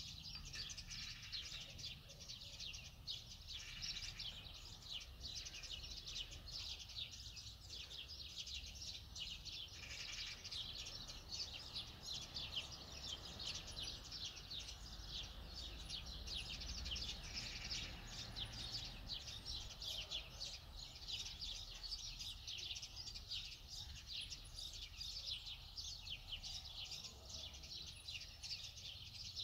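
Many small birds chirping continuously in a dense, rapid twitter, over a low steady hum.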